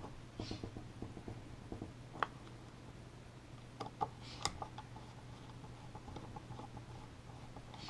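Faint clicks and scrapes of a small screwdriver and screws working on the metal EOS adapter mount of a Canon FL 55mm f/1.2 lens, with a few sharper ticks about two seconds in and around four seconds in. A low steady hum runs underneath.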